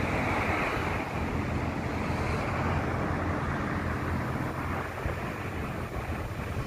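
Steady hum of road traffic from the street below.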